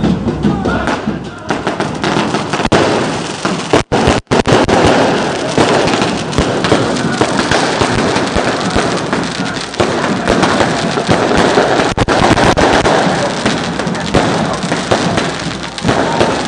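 Fireworks crackling and popping in a dense, continuous stream of small bangs, with brief cuts in the audio about four seconds in.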